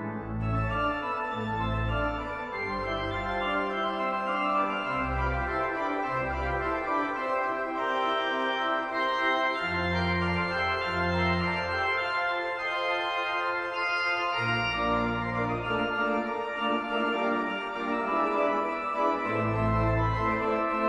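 Schuke pipe organ playing a fast toccata: rapid running figures on the manuals over separate, detached pedal bass notes.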